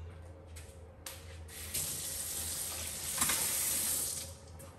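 Kitchen tap running a thin stream of water over a plastic baby bottle held under it to cool the hot milk inside. The water comes on about a second in and stops just before the end.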